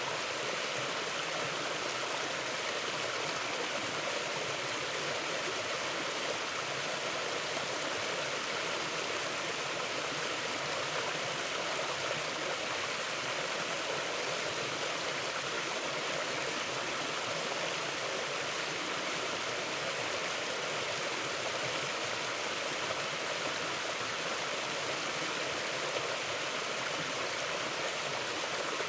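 River water rushing and babbling over rocks, a steady, even flow.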